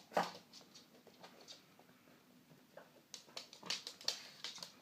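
A pug busy with a bone: scattered short clicks and taps, one sharp one just after the start and a quicker run of them in the last second and a half, with no call from her in between.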